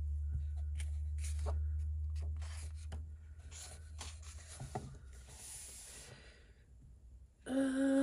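Pages of a colouring book being handled and turned: light paper taps and rustles, with a longer soft swish of paper about five seconds in. A low hum underneath fades out over the first three seconds, and a woman's voice begins right at the end.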